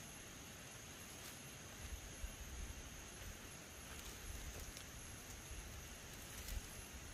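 Quiet outdoor field ambience: a steady faint high hiss, with wind gusting and rumbling on the microphone from about two seconds in.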